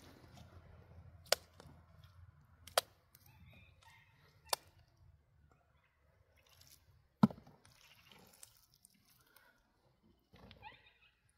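Handfuls of wet mud slapped by hand onto a concrete-block wall being plastered with mud: four sharp slaps a second and a half to two and a half seconds apart, the last one the loudest, with a dull thud.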